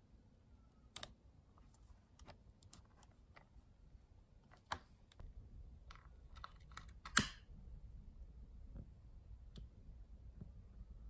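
Scattered faint clicks from handling the wires, then about seven seconds in a sharp click as a utility lighter is lit to shrink heat-shrink tubing over a wire joint.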